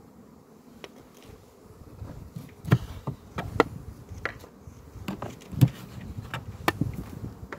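Honeybees buzzing over an open hive, the hum growing from about two seconds in. Over it, a string of sharp wooden knocks and clicks as a metal hive tool pries at the wooden hive frames.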